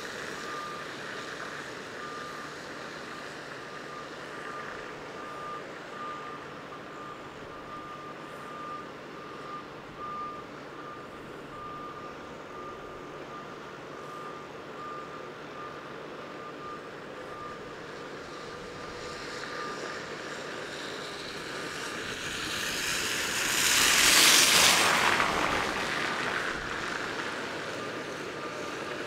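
Reversing alarm of a construction vehicle beeping at an even pace, a single high tone repeated over a faint low hum. Near the end a louder rushing noise swells up and fades away over a few seconds.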